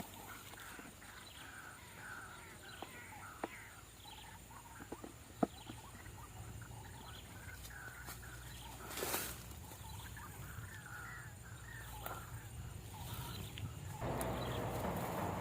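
White-breasted waterhen calls: a long run of short repeated notes, with a few sharp clicks in between. About fourteen seconds in, a louder rustling noise sets in.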